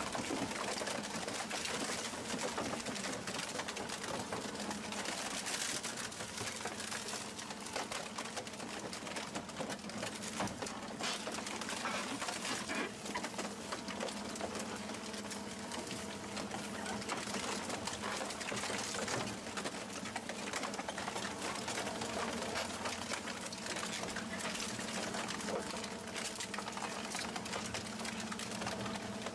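Twin-shaft shredder's rotating cutter shafts tearing up a car body: constant metallic crunching and cracking over the steady hum of the drive.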